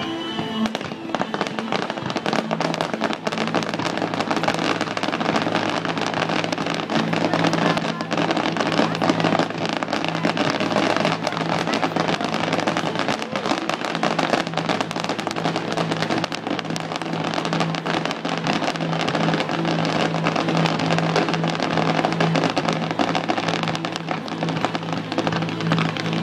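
Fireworks going off, with many crackles and pops, over continuous music that has steady low tones.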